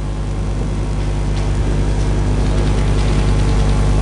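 A steady low hum with an even hiss over it, slowly growing louder.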